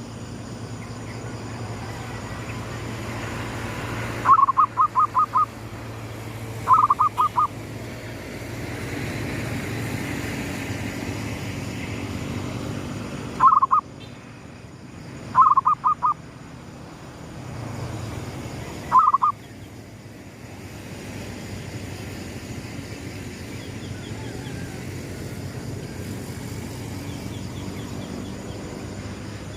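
Zebra dove (perkutut) cooing in short bursts of quick, staccato notes, about five separate phrases several seconds apart, over a steady low background hum.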